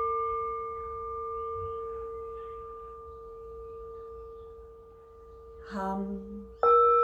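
Singing bowl ringing and slowly fading, a clear pure tone with a few higher overtones. Near the end a bowl is struck again and rings out louder.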